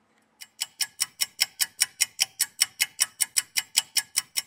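Clock-ticking sound effect, a steady run of sharp ticks at about five a second, starting about half a second in. It stands for a timed three-minute wait while the contact cleaner loosens the battery adhesive.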